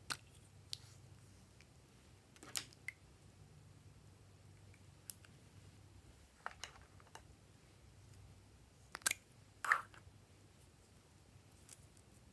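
Glossy slime being mixed and pressed by hand: sparse sticky clicks and squishes, about eight in all, with the two loudest close together about three quarters of the way through, over a faint low hum.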